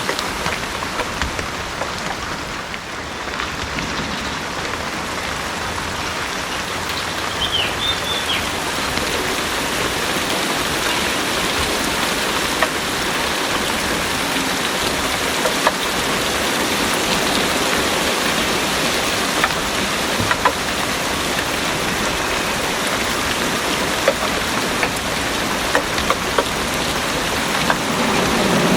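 Heavy rain pouring steadily, with individual drops pattering sharply close by.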